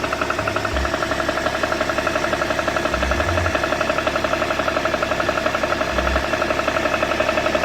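BMW E61 525d's straight-six diesel engine running steadily with a fast, even pulsing beat and a low swell about every three seconds: an unidentified noise that the owner cannot explain.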